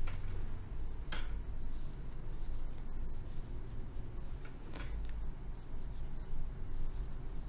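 Steel crochet hook working polyester macrame cord: soft scratchy rubbing as the cord is pulled through the stitches, with a couple of faint clicks.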